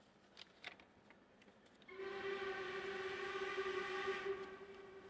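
Steam locomotive's whistle sounding one steady blast about two seconds in, held for a couple of seconds and then dying away. A few faint clicks come before it.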